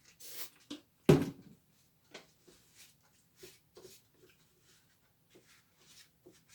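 Handling noises from wiping down an electric fan motor: a short rubbing hiss at the start, a single thump about a second in, then scattered light clicks and taps.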